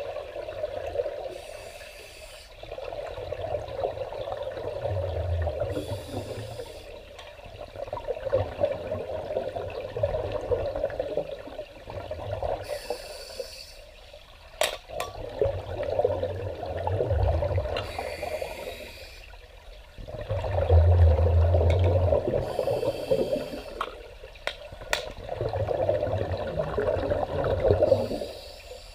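Scuba regulator breathing underwater, about six breaths, one every five seconds or so: a short hiss on each inhale, then a few seconds of rumbling exhaled bubbles. There are a couple of sharp clicks along the way.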